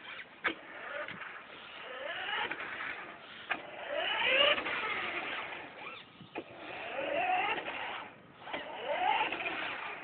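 Small electric motors of a homemade remote-control crane whining in repeated spurts, each rising in pitch as the motor spins up, with a few sharp clicks between.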